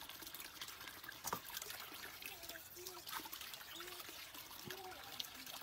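Shallow stream water trickling and splashing as things are washed in a metal basin and water is poured from a small metal bowl, with a knock just over a second in.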